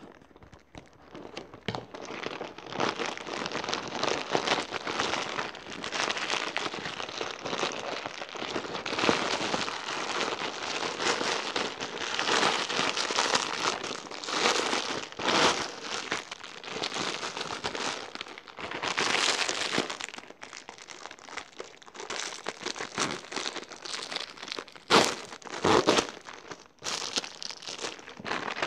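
Plastic packaging crinkling and rustling as it is handled: a pink plastic mailer bag being cut and pulled open, then the clear plastic bag around a plush toy. Irregular, dense crackling throughout, with a few sharper, louder crackles near the end.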